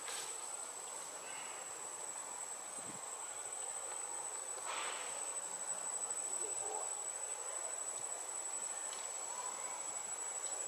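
Insects calling in the trees: a steady, thin, high-pitched drone that does not change, over faint background hiss, with a brief soft noise about five seconds in.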